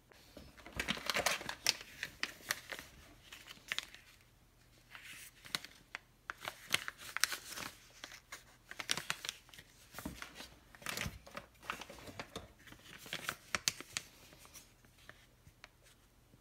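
Thin clear plastic bags crinkling and rustling in the hands, an irregular crackle that comes and goes with short pauses and dies away near the end.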